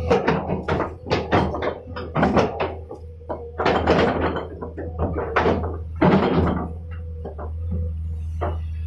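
Volvo EC210 excavator's diesel engine running steadily, overlaid by a series of irregular knocks and clunks that thin out about seven seconds in, leaving the steady drone and one last click.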